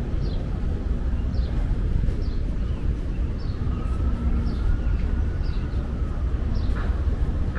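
Outdoor city-waterfront ambience with a steady low rumble, over which short high chirps fall in pitch about once a second. A faint drawn-out tone rises and fades in the middle.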